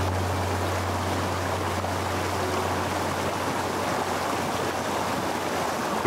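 Mountain stream rushing and splashing over boulders in small cascades, a steady, even rush of water.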